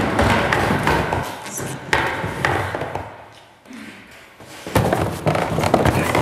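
Footsteps thudding on stairs, a run of heavy steps that stops for about two seconds and then starts again.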